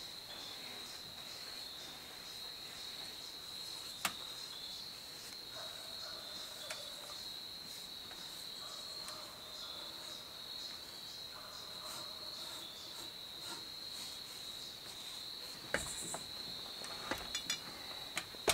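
Crickets chirring steadily in a high, pulsing trill. A sharp click about four seconds in, and a few knocks and clicks near the end.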